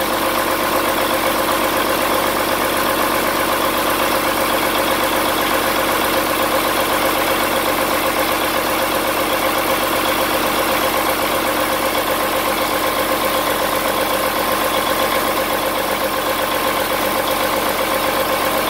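Freshly rebuilt Cummins 8.3 six-cylinder turbo diesel running steadily on a run-in stand during its break-in after the rebuild. It holds one even speed throughout, with no revving.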